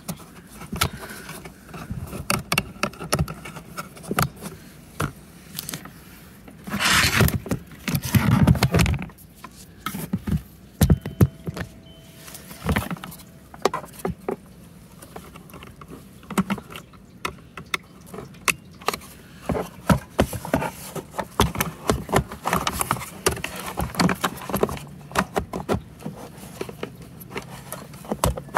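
Irregular plastic clicks, scrapes and rattles of hands plugging wire connectors back onto a robotic-mower charging station's circuit board and handling its plastic housing, with a louder stretch of handling noise about seven seconds in.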